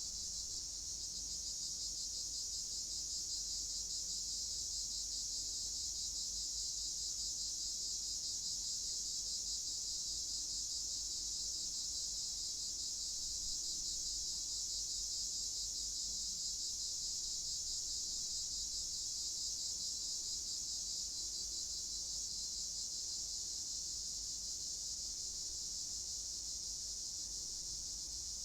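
Crickets chirring steadily in a dense chorus, a high continuous pulsing trill with a faint low rumble beneath.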